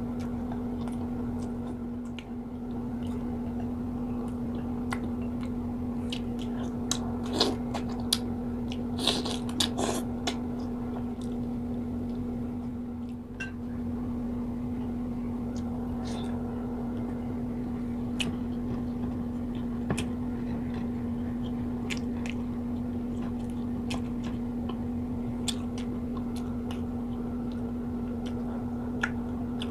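Close-miked chewing and mouth sounds of a person eating, with scattered sharp clicks that cluster about seven to ten seconds in, over a steady low hum.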